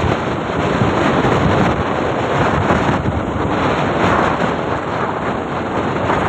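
Wind buffeting the microphone of a camera riding on a moving motorbike: a loud, steady rushing noise with no clear engine note.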